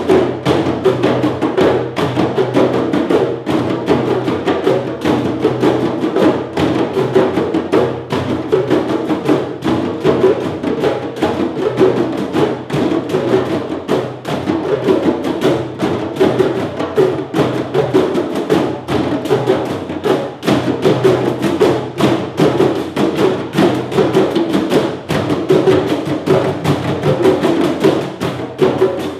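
Hand-drum ensemble of djembes, cajóns and a conga playing together in a fast, dense, steady rhythm.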